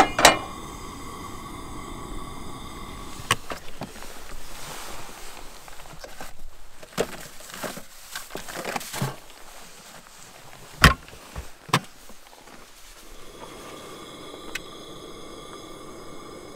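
Handling sounds of camp cooking: irregular clicks, knocks and rustles as food and containers are taken out of a 12-volt fridge and set down on a wooden cutting board. There is a sharp knock near the start and two more about eleven and twelve seconds in, with a steady faint high hum at the start and again near the end.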